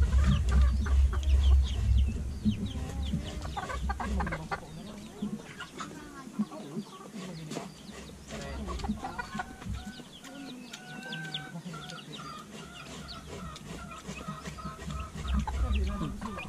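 Chickens clucking, with repeated short calls and a drawn-out wavering call in the second half. A low rumble sits under the first few seconds and returns near the end.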